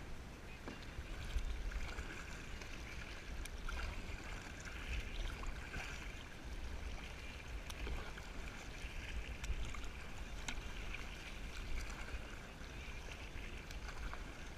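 Water splashing and lapping against a sit-on-top kayak as it is paddled, with paddle blades dipping into the water. A steady low rumble runs underneath, and there are a few small ticks.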